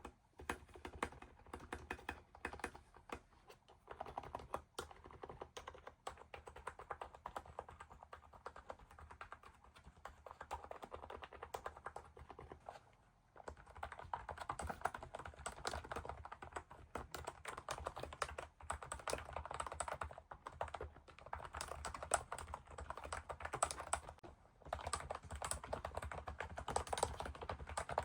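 Continuous typing on an ABKO MK108 membrane keyboard: soft, quiet, irregular key presses, with a short pause a little before halfway.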